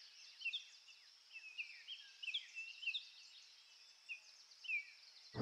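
Faint chirps of small songbirds: short, high, mostly falling notes, about two a second and irregular, over a steady high hiss. No moose call is heard.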